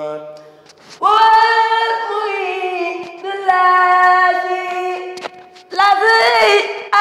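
A boy's solo voice chanting a Mouride khassida, an Arabic devotional poem, unaccompanied. He sings three long drawn-out phrases on held notes, starting about a second in, midway and near the end, with the last one wavering in ornamented turns.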